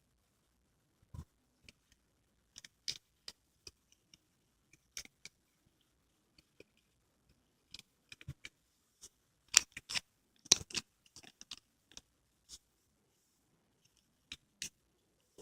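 Konjac jelly pouches being handled and set down: scattered light taps and clicks, busiest about ten seconds in.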